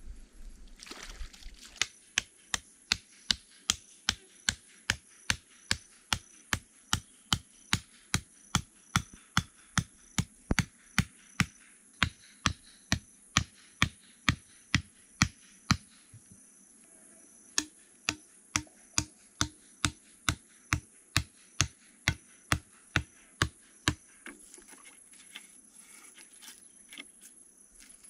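A hammer driving a stake into the ground: a steady run of sharp knocks, about two and a half a second, with a brief pause a little past halfway, stopping a few seconds before the end.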